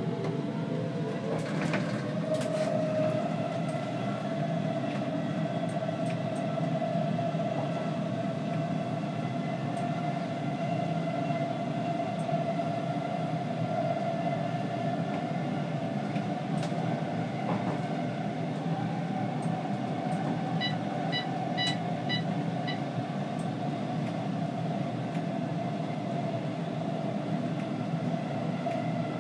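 Stockholm metro C20 train running on the rails, heard from on board: a steady rumble of wheels and running gear under a traction-motor whine. The whine rises in pitch over the first two seconds or so as the train picks up speed, then holds steady.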